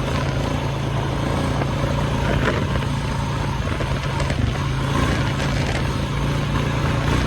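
A vehicle engine running steadily at an even pitch, with a steady rush of noise over it while riding.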